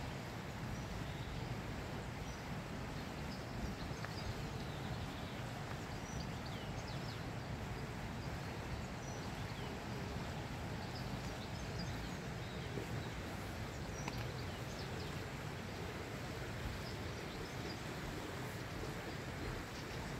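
Small birds chirping now and then, short high chirps over a steady low background noise.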